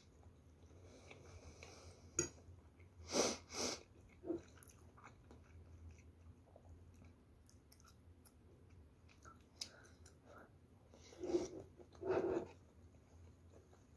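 Close-miked chewing of a mouthful of fried rice, with a sharp click about two seconds in and a few short, louder breathy sounds in pairs, about three seconds in and again near the end.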